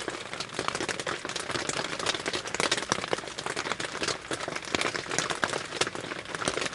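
Raindrops and drips pattering irregularly on a tarp shelter roof, many light taps a second.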